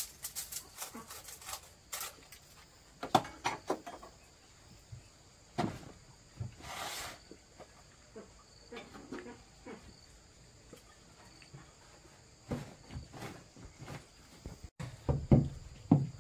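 Scattered light knocks and clicks of things being handled, with a short scraping swish about seven seconds in and a cluster of louder knocks near the end, over a faint steady insect drone.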